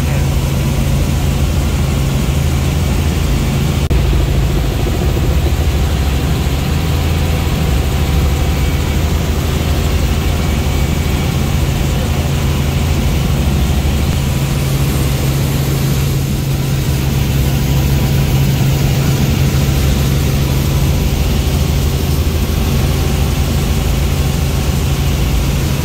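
Helicopter engine and main rotor running steadily in cruise, heard from inside the cabin as a loud, even drone with a strong low hum.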